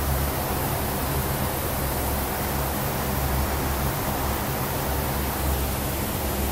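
Steady hiss with a constant low hum underneath, unchanging throughout.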